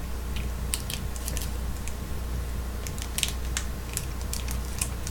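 Snack bar wrapper crinkling and crackling as it is opened, in irregular sharp snaps that grow busier in the second half, over a steady low hum.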